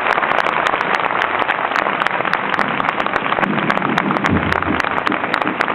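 Dense crackling hiss of a badly degraded recording, with low, muffled sounds rising out of it about halfway through.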